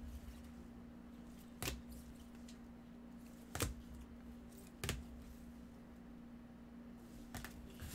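Rigid plastic card holders clicking and knocking together as graded-style slabbed cards are handled and swapped: three sharp clicks spread over a few seconds, then a couple of fainter ticks near the end, over a steady low hum.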